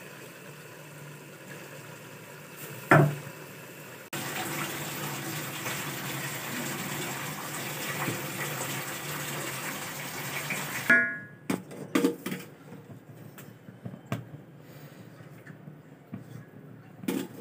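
A pot of meat-and-potato curry bubbling and hissing as it cooks, with a sharp knock about three seconds in. The hiss gets louder from about four seconds until about eleven. After that come scattered knocks and clinks against the metal pot, with one louder knock near the end.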